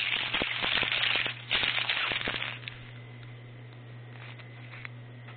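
Crackling, rustling handling noise for about the first two and a half seconds, then a steady low hum with a faint high whine.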